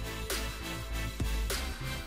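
Background music with a steady electronic beat: deep kick-drum thuds about twice a second and a brighter snare or crash hit every second or so, over sustained tones.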